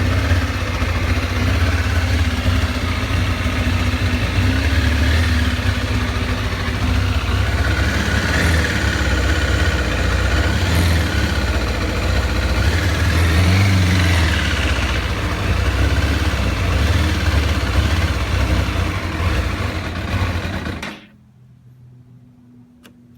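2007 Kawasaki ZZR600's inline four-cylinder engine idling roughly, with the cause of the uneven idle not yet known. About 21 seconds in the engine is shut off and the sound stops suddenly, leaving a faint low hum.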